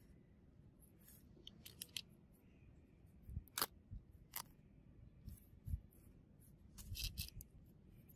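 Faint handling noise of gloved hands flexing and opening a stiff old leather pouch: scattered short sharp clicks and soft rustles, a few at a time, with some dull low bumps.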